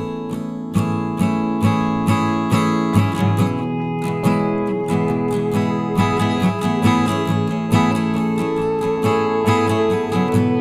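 Background music: strummed acoustic guitar with steady, regular strokes.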